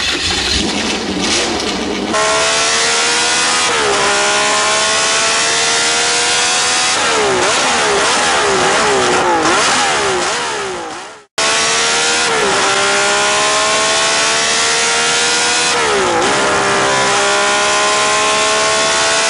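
Race car engine accelerating hard through the gears, heard on board: the pitch climbs steadily and drops sharply at each upshift, with a stretch of quick up-and-down revs partway through. After a brief cut about eleven seconds in, another climb follows with two more upshifts.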